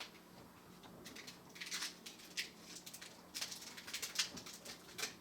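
Sticky tape crackling and rustling in short irregular bursts as it is handled, pulled and wrapped around a bundle of cables.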